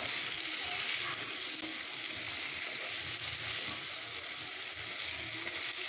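Cauliflower florets and potato pieces sizzling in oil and spice paste in a non-stick pan while a spatula stirs them. The hiss is steady.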